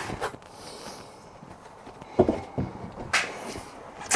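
A few light knocks and a short scrape of a folded tonneau cover and its fittings being handled and tucked into place on a pickup bed: one knock at the start, another about two seconds in, and a brief rubbing scrape about a second later.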